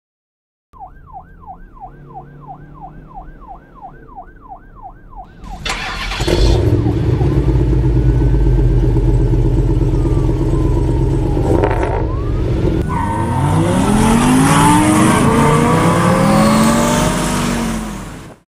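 Added sound effects: an emergency-vehicle siren in a fast yelp, sweeping up and down about two and a half times a second. About five seconds in, a loud car engine takes over, running and revving with its pitch rising again and again near the end, then cuts off suddenly.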